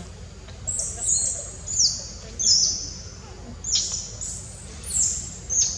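Wild bird chirping: short high-pitched calls that fall in pitch, repeating about once or twice a second.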